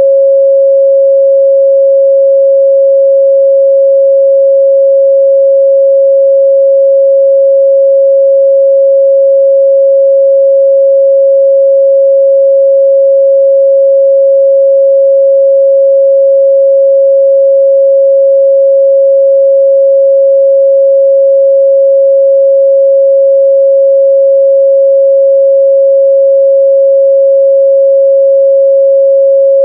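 A pure 547 Hz sine-wave test tone, held steady at one pitch and level throughout, with no harmonics.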